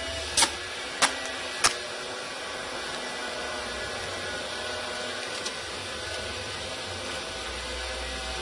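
Three sharp clicks about 0.6 s apart in the first two seconds, over a steady hiss of background noise, with one fainter click around the middle.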